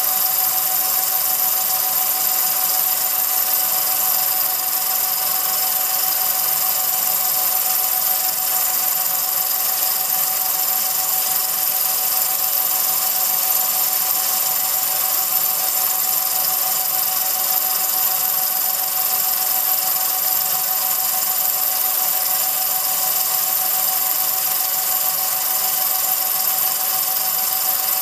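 Film projector running: a steady mechanical whir with constant high whining tones over it, unchanging throughout.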